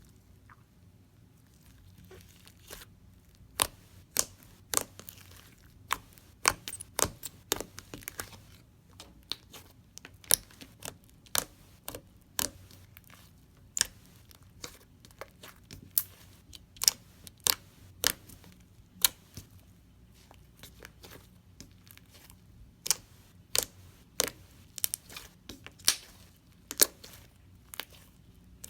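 Thick slime being squeezed and pressed by hand, giving off irregular sharp crackling pops, several a second.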